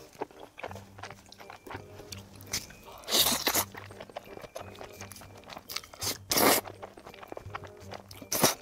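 A person eating noodles with chopsticks: three loud slurps, the longest about three seconds in, then one past the middle and one near the end, with smaller chewing and mouth sounds between them.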